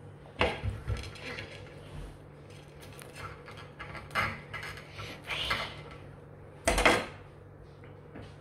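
Knife scraping and prying along the seams of a durian's spiky husk on a ceramic plate, in a string of short scrapes and cracks. A louder clatter near the end, about seven seconds in.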